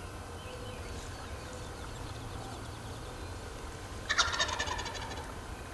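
Wild turkey gobbler gobbling once, about four seconds in: a loud, fast rattling call lasting about a second, the tom's breeding-season call.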